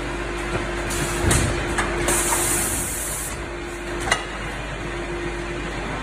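Automatic vertical powder packing machine running with a steady hum. A hiss of air lasts about a second from about two seconds in, and sharp mechanical clicks and knocks come from its bag-forming and sealing work, the loudest about four seconds in.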